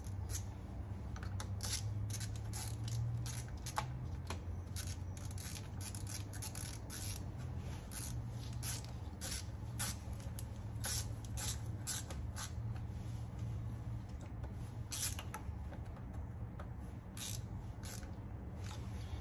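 Hands working small rubber vacuum hoses and their fittings on a turbocharged engine: scattered light clicks, rubs and scrapes at an uneven pace, over a steady low hum.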